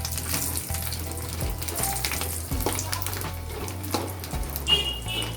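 Sun-dried buttermilk chillies (challa mirapakayalu) frying in hot oil, sizzling with a steady crackle of small pops. A brief high-pitched tone sounds near the end.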